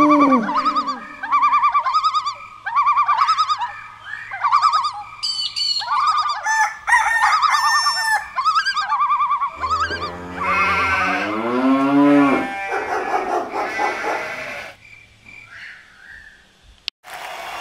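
A loud chorus of animal and bird calls: rapid repeated chirping calls throughout, shrill high trills near the middle, and a lower wavering call with gliding pitch about ten seconds in. It fades away near the end, with a single click just before the end.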